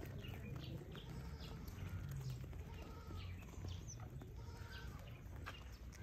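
Beetal goats' hooves on dry dirt: light, scattered hoof steps as the goats move about, over a low steady hum.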